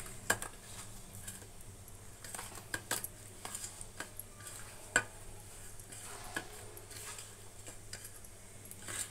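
Hands rubbing and turning pabda fish in a steel plate to coat them with a salt, turmeric and mustard-oil marinade, with scattered light clicks and knocks of fish and fingers against the metal plate.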